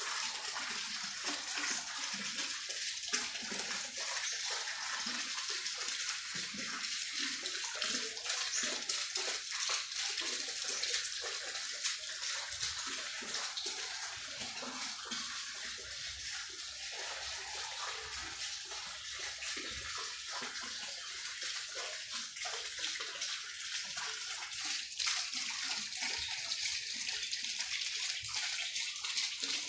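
Crickets and cicadas calling together in a dense, steady chorus, heard as an even high-pitched hiss.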